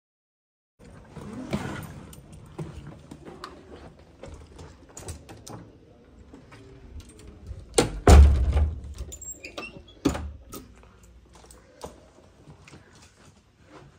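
A hotel room door with a metal lever handle being opened and gone through: scattered clicks and knocks with handling rustle, and one heavy thump about eight seconds in.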